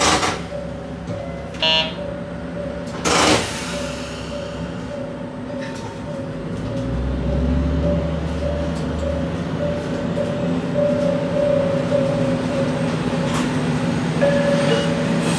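Diesel railcar running, heard from on board: a steady low engine drone with wheel and rail noise, and two short noisy bursts in the first few seconds. About halfway through a deep rumble comes in and the sound grows louder.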